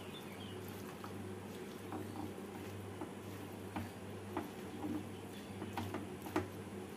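A spatula stirring thick chickpea curry in a nonstick pan: faint, irregular soft taps and squishes over a low steady hum.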